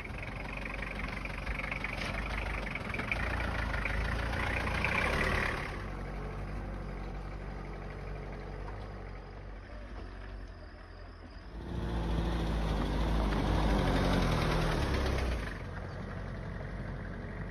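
A vehicle engine running while driving over a rough dirt track. It gets louder twice, for the first five seconds or so and again from about twelve to fifteen seconds in.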